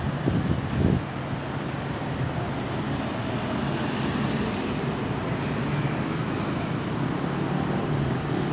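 Road traffic noise: vehicles running past with a steady low engine hum, a little louder in the first second. No siren can be heard.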